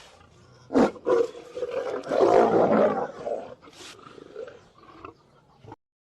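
A big cat roaring: a sharp burst about a second in, then a long rough roar that is loudest two to three seconds in and trails off, cutting off suddenly near the end.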